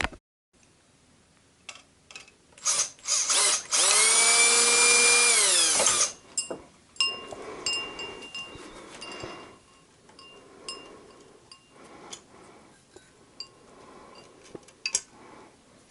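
Power drill backing out the screws that hold a ceiling fan's light housing: a few short blips, then the motor spins up to a steady whine for about two seconds and winds down. Small clicks and rattles of parts being handled follow.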